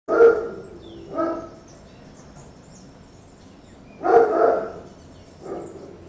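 A dog barking four times, in two pairs, with faint high chirps of small birds behind.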